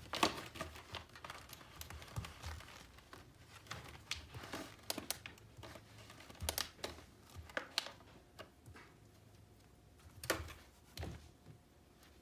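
Clear crinkly plastic rustling and crackling in irregular bursts as puppies chew and paw at it during play.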